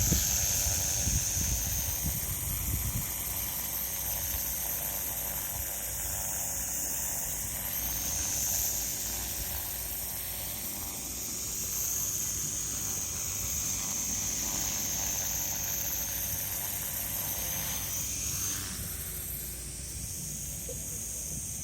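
Solo Pro 287 micro electric RC helicopter hovering, its high-pitched motor and rotor whine holding steady and swelling and easing a little as it holds position. Wind rumbles on the microphone in the first few seconds.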